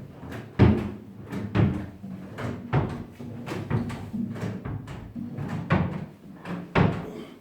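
Wooden furniture parts knocking and banging, about ten sharp knocks at irregular spacing, over a low steady hum.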